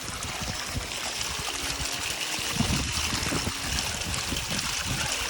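Waterfall water running steadily, an even rushing hiss, with uneven low rumbling underneath.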